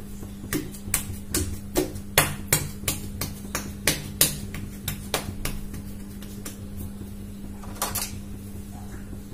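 Hands pressing and flattening a log of dough on a marble worktop, with a quick run of sharp taps and knocks, about three a second, for the first five seconds or so and one more near the end, over a steady low hum.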